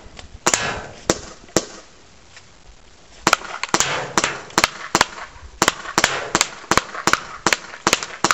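P22 gas airsoft pistol firing sharp pops: three shots about half a second apart, a pause, then a quick string of shots at about three a second.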